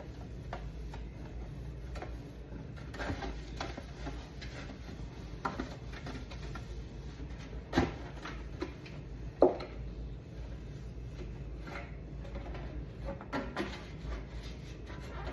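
Things being handled in a refrigerator being cleaned out: scattered light knocks and rubbing, with two louder knocks about eight and nine and a half seconds in.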